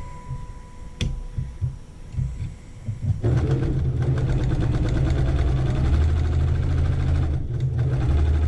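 Electric sewing machine stitching at speed, a fast, even run of needle strokes that starts about three seconds in after a single click and pauses briefly near the end.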